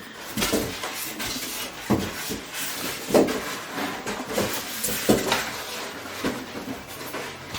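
Packaging being handled as a sewing machine is taken out of its box: irregular rustling and scraping, with a few sharp knocks.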